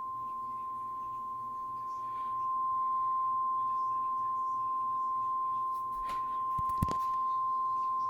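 Emergency Alert System attention tone playing from a TV: one steady, high, pure tone held throughout, marking the start of a civil danger warning. A couple of sharp clicks come near the end.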